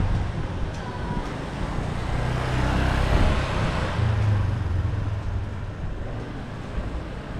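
A motor vehicle passing close by on a street, its low engine hum and tyre noise swelling to a peak about three seconds in, then easing away.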